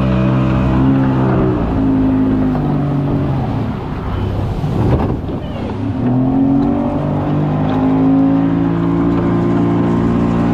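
Outboard motor of an open fishing boat running under way. About four seconds in its pitch sags and dips with a rush of water noise, then climbs back to a steady run.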